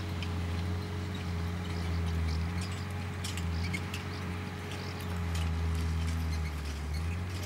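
Grey pony trotting on arena sand while pulling a four-wheeled driving carriage: soft hoofbeats with scattered light clicks, over a steady low rumble.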